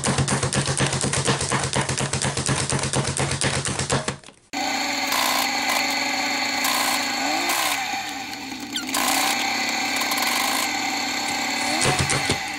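Pampered Chef plunger food chopper being pumped rapidly, its ratcheting blades making a fast run of clicks for the first four seconds or so. The sound then cuts off abruptly to a loud, steady drone of several held tones that shift in steps. A few more chopper clicks come near the end.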